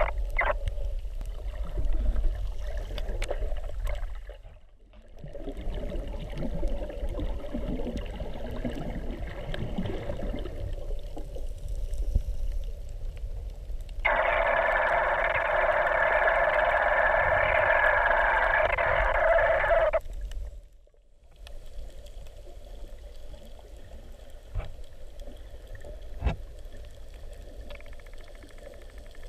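Muffled underwater ambience picked up through a waterproof camera housing: low rumble and water noise. About halfway through, a louder steady hiss with a faint hum in it runs for roughly six seconds and cuts off abruptly. A single sharp click comes near the end.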